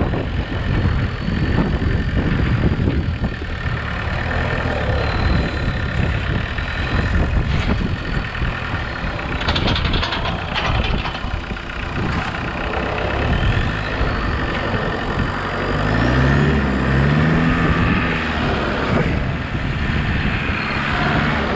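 Homemade tractor's engine running close by, with the machine rattling as it moves; about three-quarters of the way through, the engine note rises and falls.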